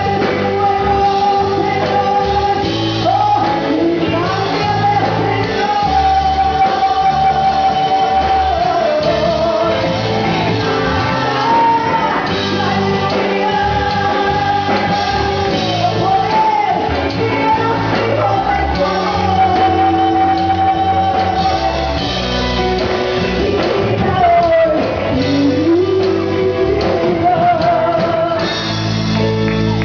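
Live Spanish-language worship song: a singer holding long notes over an amplified church band with bass.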